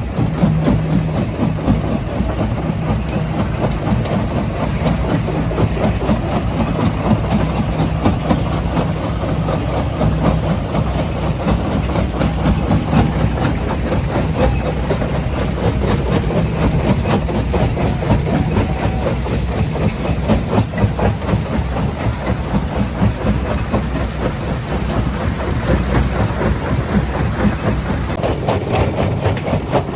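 Heavy machinery at a stone-crushing plant running: a steady diesel engine drone under a continuous rattle and clatter of rock.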